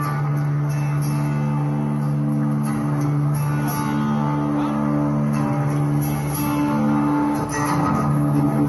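Instrumental dance music with long, steady held notes underneath.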